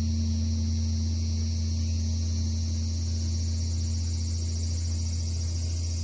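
Great bronze Buddhist temple bell (beomjong) humming on after a stroke of the wooden striker log: a steady deep hum with a higher tone above it, slowly fading.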